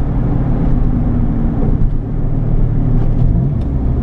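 1992 Autozam AZ-1's small turbocharged three-cylinder engine running under light, steady load while driving, heard from inside the cabin along with road noise. The pitch shifts slightly about three seconds in.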